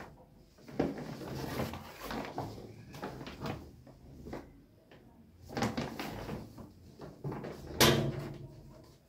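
Clothes rustling and bumping as they are pulled out of a fabric laundry hamper and dropped onto a side table, with one sharp knock about eight seconds in.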